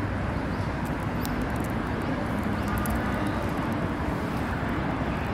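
Steady running noise inside a Daegu Metro Line 3 monorail car as the rubber-tyred train travels along its elevated guideway, a low rumble with a few faint ticks.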